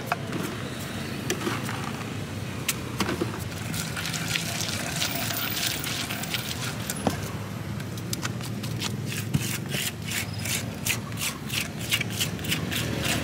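Wooden pestle grinding and mashing wet rujak peanut sauce in a stone mortar (ulekan and cobek): wet squelching with short scrapes and clicks of wood on stone, coming quickly and steadily in the second half.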